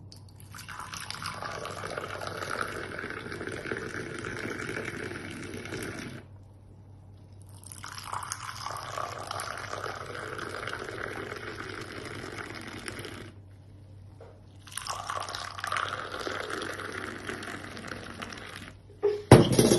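Tea poured from a height into glasses to raise foam, in three long pours of about six seconds each with short pauses between. A sharp clatter near the end.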